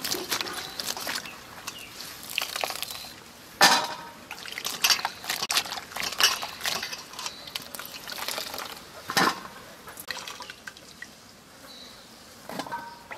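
Soya chunks being washed and squeezed by hand in water in a stainless-steel bowl: water sloshing and dripping in irregular bursts, a few of them louder.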